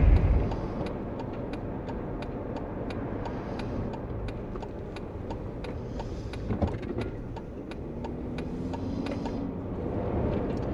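Jeep Wrangler JK driving on the road: steady road and engine noise, with frequent small ticks or rattles about twice a second.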